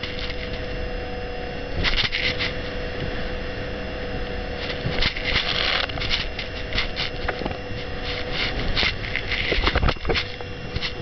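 Single-engine speedboat running at speed: a steady engine drone under heavy wind buffeting on the microphone, with repeated knocks and splashes as the hull slaps the waves, thickest around the middle and near the end.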